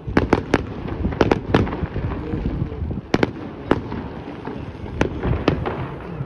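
Fireworks going off: about a dozen sharp bangs and cracks in irregular clusters, over a low rumble of echoing blasts.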